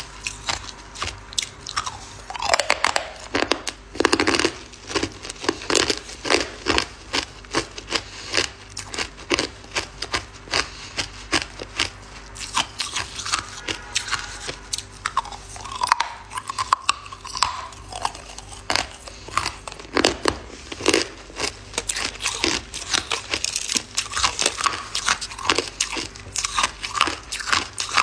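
Hard balloon ice being bitten and chewed, a dense run of sharp cracks and crunches as the round ice balls break up between the teeth.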